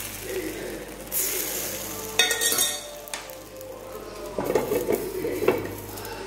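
Batter sizzling in a hot non-stick pan, with a sharp ringing metal clink a little over two seconds in. Several knocks of cookware follow as a glass lid is set over the pan.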